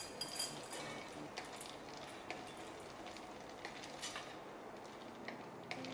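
Wax pellets poured from a plastic measuring jug into a stainless steel pouring pot, a steady stream of small clicks and ticks as they land against the metal.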